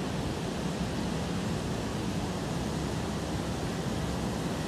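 Heavy rain and wind: a steady, even rush of a strong rainstorm.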